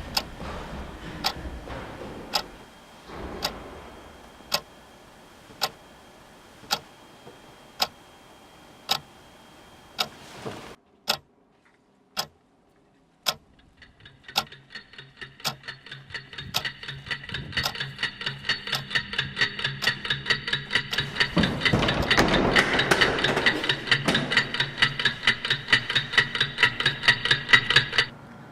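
A clock ticking steadily, about one tick a second, stopping briefly near the middle. It then resumes with quicker ticks under a rising sustained drone of several tones, which swells and cuts off suddenly at the end.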